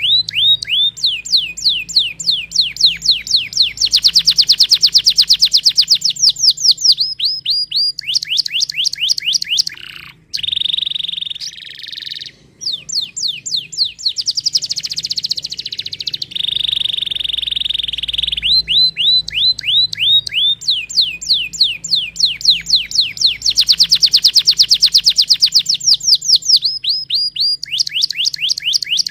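Domestic canary singing: rapid trills of downward-sliding notes, some slow and some very fast, broken by steady held whistles. The same sequence of phrases comes round again about halfway through.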